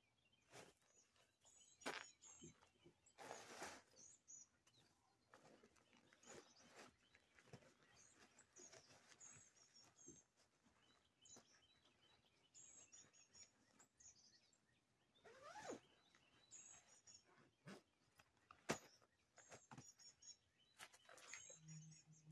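Faint, scattered rustling and crunching as a Guidesman Twin Lakes two-person backpacking tent is folded, rolled and packed into its stuff sack on wood chips, with a few small knocks. Small birds chirp faintly throughout.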